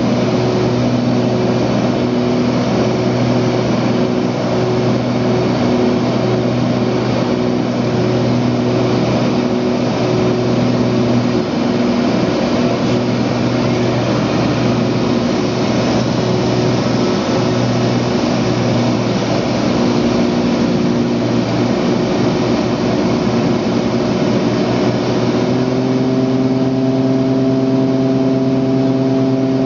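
Cessna 402B's twin piston engines and propellers heard from inside the cabin: a loud, steady drone with a slow, regular pulse in it. About 25 seconds in, the engine note shifts and becomes steadier, with a higher tone added.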